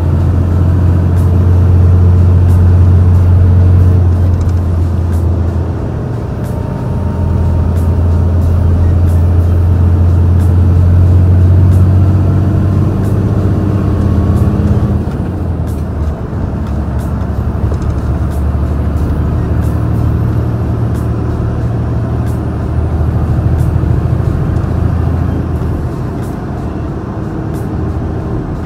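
Large truck's diesel engine with a stock exhaust, pulling hard up a steep grade at full throttle: a deep, steady drone heard through a slightly open cab window. The low drone eases briefly about six seconds in and again about fifteen seconds in.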